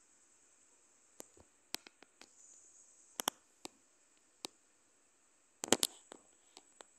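Scattered faint clicks and taps over a steady high hiss, with a quick burst of several sharper clicks about six seconds in.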